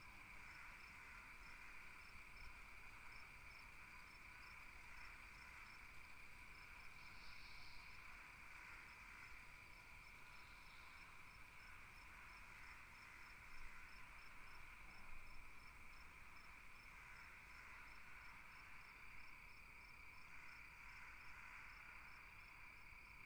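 Faint night-time nature ambience: crickets chirping in an even rhythm, two or three chirps a second, over a steady high drone.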